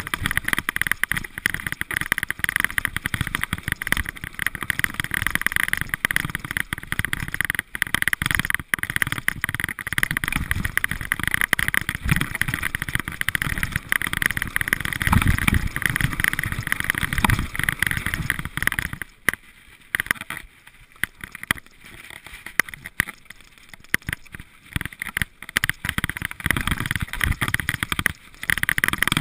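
Mountain bike riding fast down a forest dirt trail: tyres rolling over dirt and leaves, the bike rattling and knocking over bumps, with wind buffeting the microphone. It goes quieter for several seconds in the second half, then picks up again near the end.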